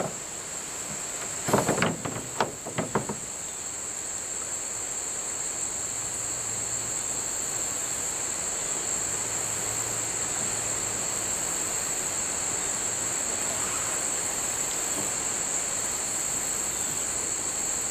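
Steady high-pitched drone of an insect chorus, crickets or similar, with a few brief knocks about two seconds in.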